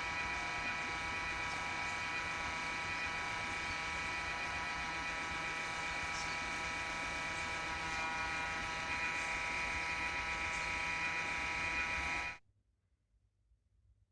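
Cooling fan of a Toshiba RD-BZ800 Blu-ray recorder making a loud abnormal noise: a steady, high whine of many tones over a rough hum, the sign of a failing fan. It cuts off suddenly near the end.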